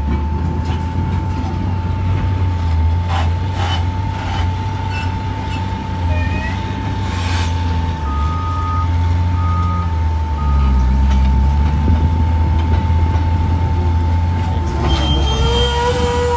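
Heavy diesel engines of a Caterpillar wheel loader and a dump truck running steadily under a constant whine, while the loader works a gravel pile. About halfway through comes a run of three backup-alarm beeps as the loader reverses, and near the end a rising squeal as the loaded bucket is raised over the truck.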